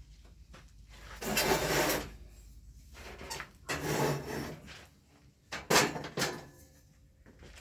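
Ski lift chair parts being handled: three rubbing, scraping sounds of pieces sliding against each other, with a few light knocks between them.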